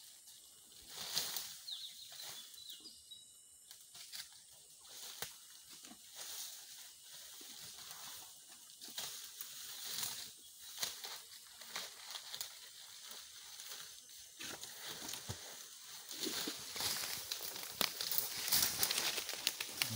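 Irregular rustling, crackling and tearing of grass and leaves as a male Sumatran elephant feeds, pulling up undergrowth with its trunk. The rustling grows louder over the last few seconds.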